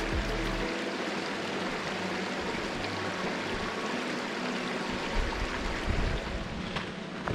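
Steady rushing of flowing creek water, with a couple of brief low thumps about two-thirds of the way in.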